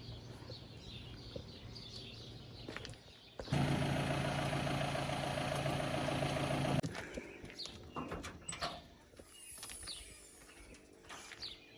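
An engine running steadily for about three seconds, starting and cutting off abruptly a few seconds in, with faint bird chirps around it.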